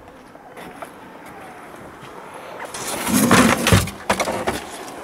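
Ice fishing tip-ups and rods rattling in a plastic crate as it is handled: a faint steady hiss at first, then a run of loud rustles and knocks with a couple of dull thumps, followed by lighter clicks.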